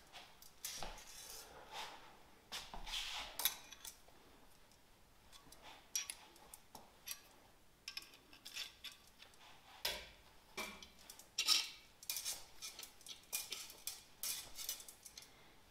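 Irregular light metallic clicks, clinks and scrapes from a hand brake-pipe flaring tool being fitted and worked on the end of a 5 mm steel brake pipe.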